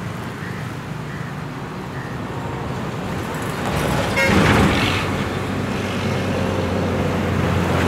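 Road traffic: a diesel truck passes close by, loudest about four and a half seconds in, leaving a steady low engine drone, with a short horn toot just before it passes. Motorcycle engines and a second rise of engine noise come near the end.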